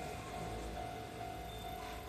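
Japanese level-crossing alarm ringing, a repeating electronic ding about twice a second, over a low steady rumble.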